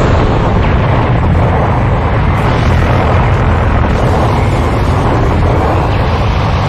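A loud, steady explosion-like rumble with crackle, with no sharp strikes standing out. It is a dramatic sound effect for the shockwave of a sword and Haki clash in an anime fight.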